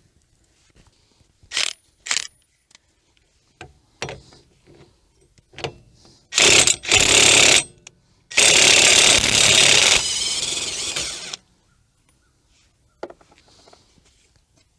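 Impact wrench hammering on a 30 mm front axle nut: two short bursts, then a longer run of about three seconds that gets quieter for its last second or so. A few light clicks of the socket and tools being handled come before it.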